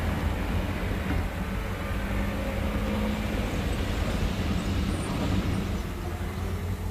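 Motor vehicle engine running steadily: a low hum over a dense, even rumble.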